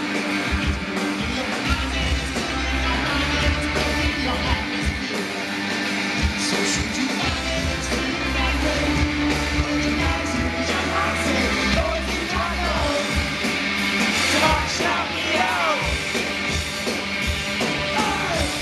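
Live band playing loud amplified music, with a lead singer over guitar, bass and drums; the sung line stands out most over the second half.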